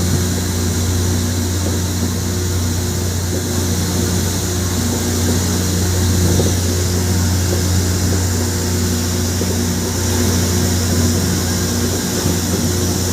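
Rail grinding machine running: a steady low drone with a hiss above it that holds level throughout.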